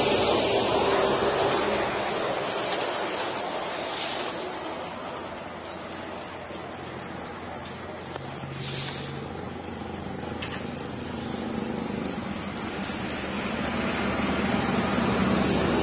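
Crickets chirping in an even, rapid pulsing trill, over a low steady rumble of vehicles on the road.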